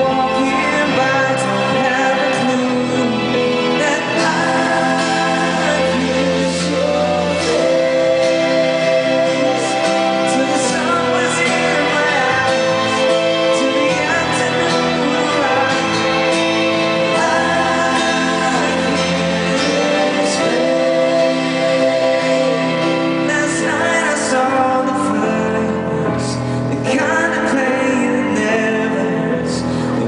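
Live pop ballad: male voices singing sustained harmony lines over backing music, heard through a concert PA.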